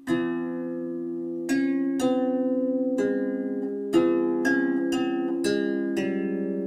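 Background music: a slow, gentle melody of single plucked-string notes, about nine in all, each ringing on after it is struck.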